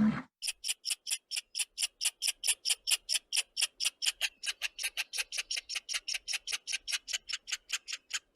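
An animal calling in a fast, even series of short, high chirps, about five a second.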